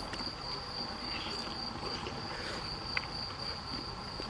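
Crickets trilling, a steady, unbroken high-pitched chirring, with one short sharp click about three seconds in.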